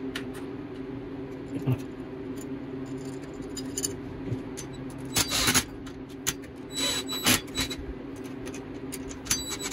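Metal parts being fitted by hand: a few short clatters and rattles as a bicycle wheel's rear sprocket and its mounting bolts are set onto the hub, over a steady low hum.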